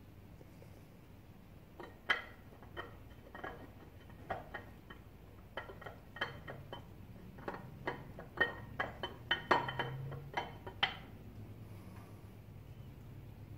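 GM LT4 hot roller camshaft clinking against the cam bearings as it is slid by hand into a 350 small-block Chevy. The light metallic clinks are irregular and ring briefly; they start about two seconds in and stop about eleven seconds in.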